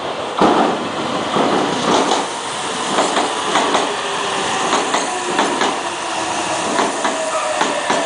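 A Meitetsu 3000-series-family stainless electric train runs through the station at speed without stopping. There is a loud rush of wheels on rail, with repeated clacks as the wheels cross rail joints, and a faint whine falls slowly in pitch near the end.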